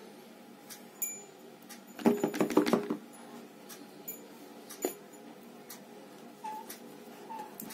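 Paperboard phone box being slid open by hand: the inner box scraping out of its tight sleeve, with light clicks and a squeaky burst of friction about two seconds in.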